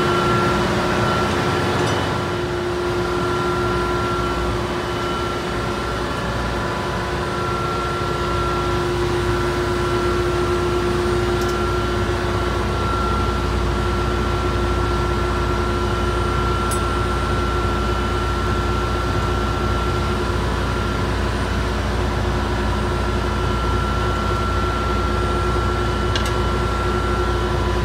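Ship's engine-room machinery running: a steady drone with two constant tones, one mid-pitched and one higher, over a noisy hum. The low rumble grows stronger about eight seconds in.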